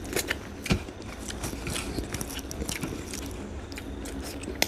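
A person chewing a mouthful of rice and fried egg, close to the microphone: irregular wet mouth clicks and smacks, a few of them louder near the start.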